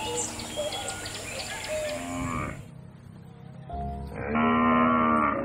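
A cow mooing: one long call in the second half, dropping in pitch at its end. Before it, soft background music with light clicks.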